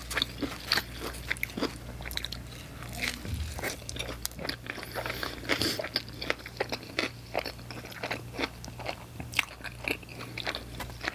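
Close-miked biting and chewing of a slice of plain pizza, with many small crisp crunches and wet mouth clicks throughout, over a faint steady low hum.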